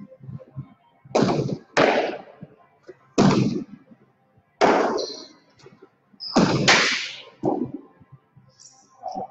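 Jai alai pelota cracking against the walls and floor of the fronton during a rally: about six sharp, loud strikes over some six seconds, each ringing on in the hall's echo.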